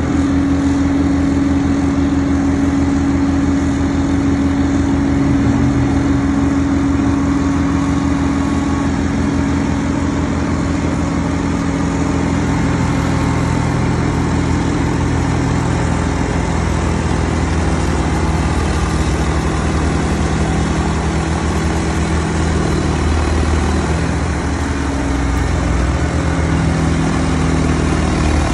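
Diesel engine of a John Deere wheel loader and its front-mounted snowblower running steadily under load, the blower cutting into a snowbank and throwing snow.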